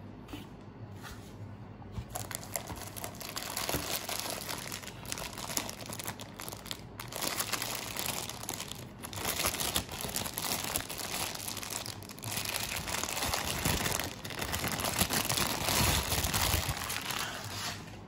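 Clear plastic bag crinkling in uneven bursts as it is handled and pulled off the leak tester's pressure gauge, starting about two seconds in.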